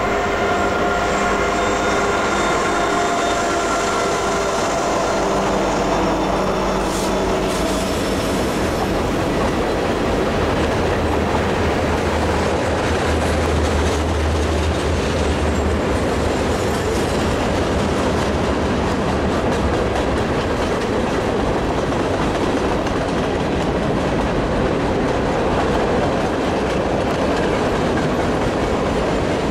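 Norfolk Southern freight train passing. Its diesel locomotives give a steady engine drone that fades over the first several seconds, then freight cars roll by with steady clickety-clack and wheel noise on the rails.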